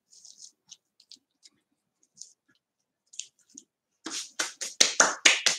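Faint rustling of a paper stencil as hands press it flat onto a cake. About four seconds in, a rapid run of about eight loud, sharp strokes as the hands lift quickly away.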